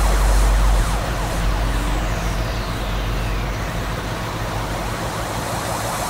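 Sport motorcycle engines running at low speed in traffic: a steady low drone with road and wind hiss, heavier in about the first second, then lighter.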